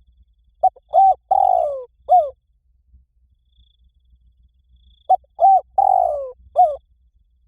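Spotted dove cooing: two phrases of about four coos each, a few seconds apart, each with one longer, falling note in the middle.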